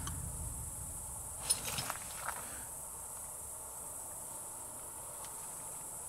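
Steady high-pitched chirring of insects such as crickets, with a few faint crackles between about a second and a half and two and a half seconds in.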